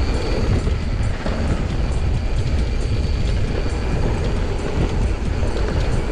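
Mountain bike riding fast down a dirt trail: steady wind rushing over the microphone and tyres rolling on packed dirt, with the bike rattling and clattering in many quick small knocks over the bumps.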